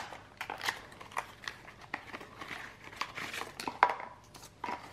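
A small cardboard knife box being pried open and handled: irregular crinkling, rustling and small clicks of cardboard and packaging, with one sharper click near four seconds in.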